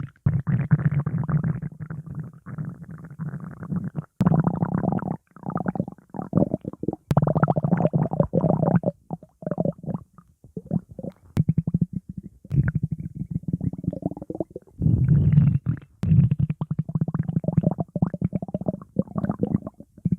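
A stomach growling in long rumbling stretches broken by a few short pauses, with shorter, choppier growls in the middle.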